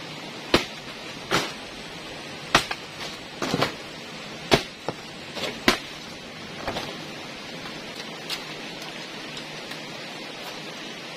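Large banana leaves rustling and flapping as they are handled and laid onto a pole roof frame: a string of sharp crackles and slaps, most of them in the first six seconds, a few fainter ones after. Under them runs the steady rush of a river.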